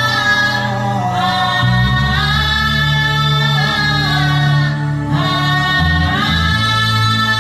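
A man's voice humming a slow, wordless worship melody in long held phrases, over sustained low accompanying notes that shift every few seconds.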